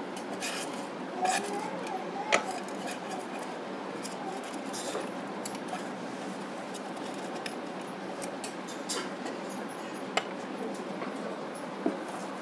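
A cloth wiping out the metal oil pan under a Juki industrial sewing machine: a steady rubbing with a few sharp clicks of metal, the loudest about two seconds in.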